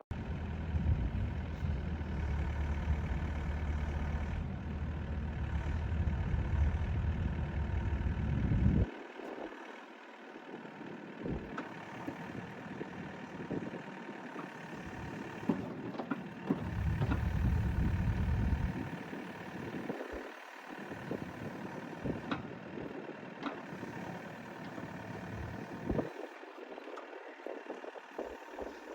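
Bobcat E80 excavator's diesel engine running steadily, with a deep low rumble that drops away sharply about nine seconds in and returns briefly around seventeen seconds in; a few light knocks are scattered through the later part.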